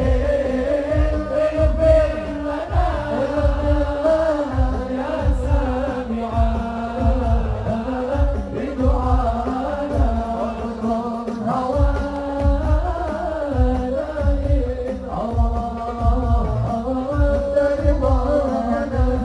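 Sholawat, an Islamic devotional song praising the Prophet, sung by a male lead voice through a PA, over a steady beat of hadrah frame drums.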